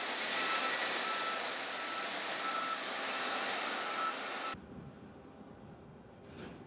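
Vehicle reversing alarm beeping at an even pace, about one and a half beeps a second, over a loud steady rush of noise. About two thirds of the way through, the sound cuts off abruptly to a much quieter background.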